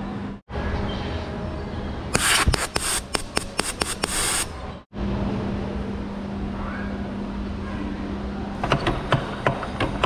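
A burst of rapid rattling knocks, wood-like, lasting about two seconds, then a steady low hum with a few scattered clicks near the end.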